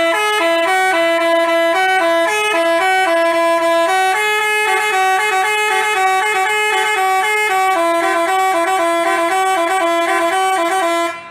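Basuri telolet bus horn playing a tune: a quick run of stepped horn notes without a break, cutting off suddenly near the end.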